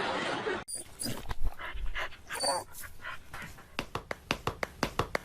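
A dog making short sounds: a few irregular whimpering or sniffing noises, then about halfway through a run of quick sharp puffs or ticks, about five a second. Before that, a steady noisy sound cuts off suddenly less than a second in.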